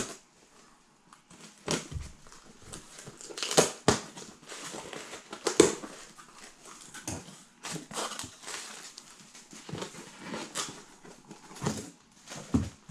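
A cardboard shipping box being opened by hand: scissors cutting, with the cardboard and packing rustling and knocking in irregular bursts.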